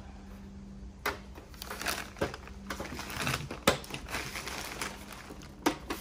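Plastic back cover of a Dell OptiPlex 9030 all-in-one being handled and lined up on its chassis: scraping and rustling with sharp plastic clicks about a second in, twice more in the middle and once near the end.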